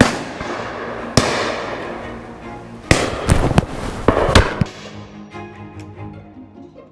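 Shotgun shots on a driven pheasant shoot from over-and-under shotguns. There is a sharp crack at the start and another about a second in, then a quicker cluster of five or so shots, some louder and some fainter, from about three to four and a half seconds in.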